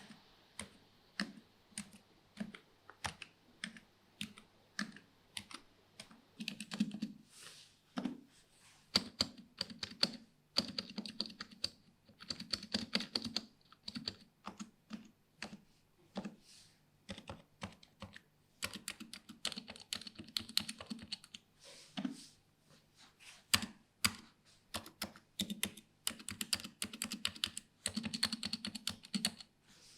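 Razer Huntsman V2 keyboard with linear optical red switches and doubleshot PBT keycaps being typed on. It starts with single keystrokes, one or two a second, then breaks into several runs of fast typing.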